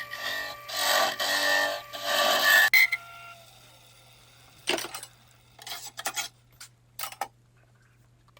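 A wood lathe turning a cedar spinning top with a tool cutting into the wood, a rasping scrape with a steady whine, that stops abruptly about three seconds in. A few light knocks and clicks follow over a low hum.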